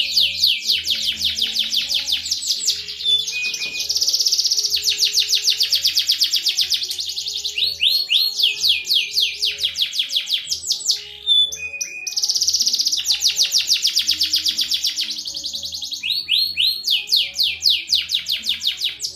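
Domestic canary singing: long rolling trills of rapidly repeated high notes, switching to a new phrase every second or two, with a brief pause about eleven seconds in.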